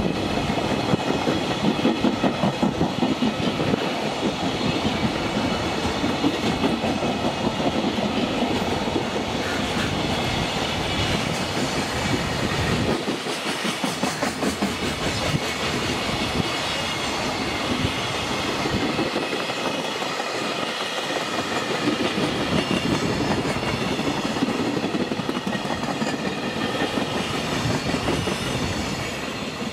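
Container freight train wagons rolling past at speed, their wheels clattering over the rail joints in a steady loud rush that fades near the end as the last wagon goes by.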